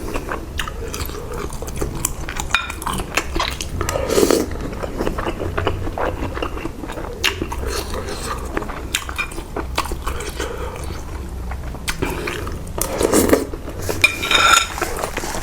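Close-miked eating of pork noodle soup: chewing and biting, with many light clicks and two longer, louder mouth sounds, one about four seconds in and one near the end.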